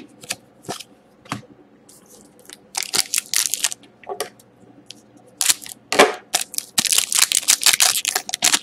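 Wrapper of an Upper Deck Artifacts hockey card pack being handled and torn open: crinkling and tearing in bursts, densest over the last couple of seconds, after a few light clicks of cards being handled.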